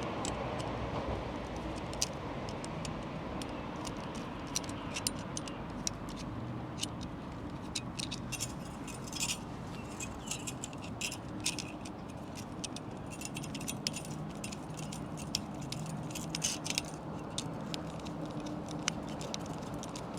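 Metal worm-drive hose clamps clicking and rattling in irregular light metallic ticks as they are worked and wound down around the antenna mast, the clamp nearly at the end of its adjustment.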